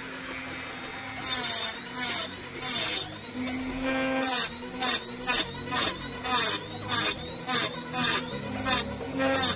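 Small hand-held rotary tool with a thin cutting disc running, then grinding against the base of a glass bottle in short repeated bursts, about two a second from a second in, as the bottle is turned against the disc.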